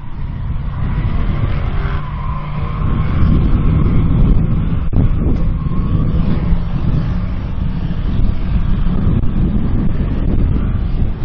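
Turbo-diesel drag truck engine running hard at full throttle, a loud low rumble with a high whistle over it, building over the first few seconds and then holding steady.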